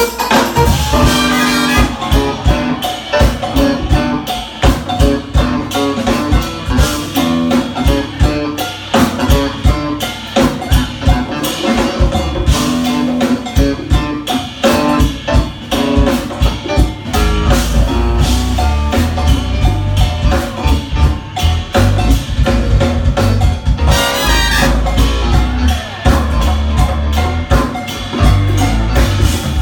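Live jazz-fusion band playing, with a drum kit keeping a busy beat. A heavy bass line comes in strongly a little over halfway through.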